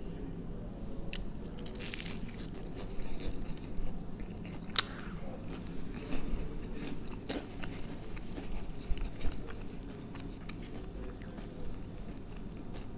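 A person biting into and chewing a crisp, deep-fried breaded snack, with a few sharp crunches scattered through the chewing.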